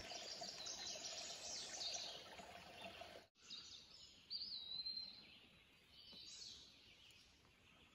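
Faint songbirds singing in woodland: quick high chirps repeated over the first few seconds, then a single high whistled note about halfway through, over a soft outdoor hiss.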